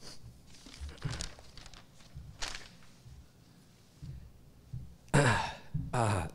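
Footsteps and light thumps on the stage as one speaker steps away from the podium microphone and another steps up. Near the end come two loud, shaky breaths or sighs close to the microphone.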